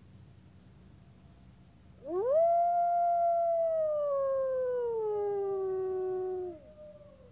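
Wolves howling. One long howl sweeps up steeply about two seconds in, holds, then slowly falls in pitch. A second wolf's howl joins slightly higher about five seconds in and trails on faintly after the first stops.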